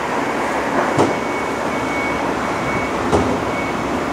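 Steady rushing trackside noise with a high beeping tone that comes and goes. Two sharp knocks sound about two seconds apart.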